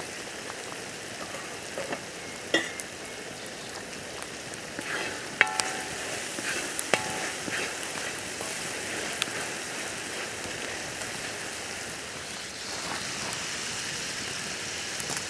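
Food frying in a pan with a steady sizzle, with a few sharp knocks and short metallic clinks of a utensil against the pan in the middle.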